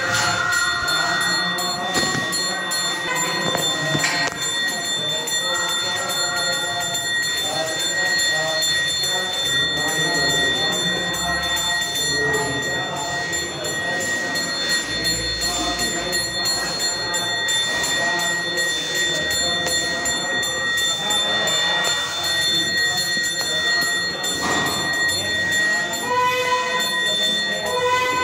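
Temple bells ringing continuously, with voices chanting underneath.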